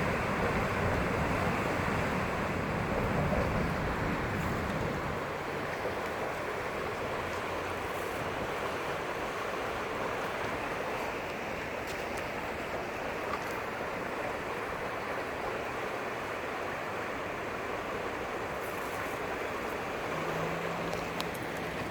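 Swollen floodwater of a river rushing steadily, a continuous even wash of water noise, with wind buffeting the microphone in the first few seconds.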